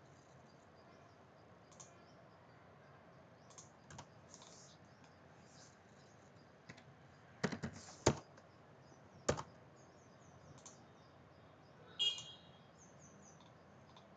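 A few keystrokes and clicks on a computer keyboard and mouse as CAD commands are typed in: a quick cluster about halfway through, a single click a second later and another near the end, over a steady low hiss.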